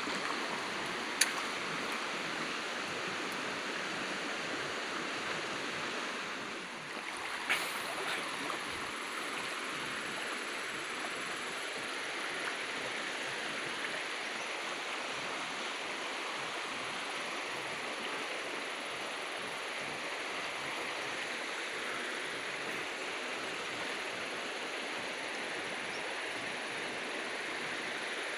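Shallow river water flowing over rocks with a steady rush, broken by two sharp clicks, one about a second in and one about seven and a half seconds in.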